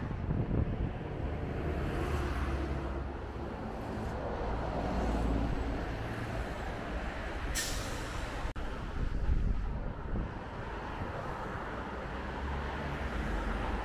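Road traffic heard from a moving car: a steady low rumble of engines and tyres, with a short, sharp hiss about halfway through.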